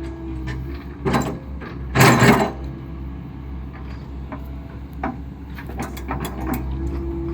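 Excavator running with its engine humming steadily while the hydraulic arm and bucket are worked about, with a steady hydraulic whine near the start and again near the end. Metal knocks and clanks come from the moving arm, the loudest about two seconds in, others about a second in and around five and six and a half seconds in.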